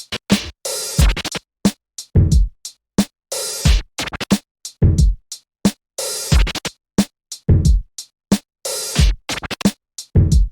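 Background music: an electronic beat with deep bass hits, chopped into short stuttering pieces with abrupt silences between them.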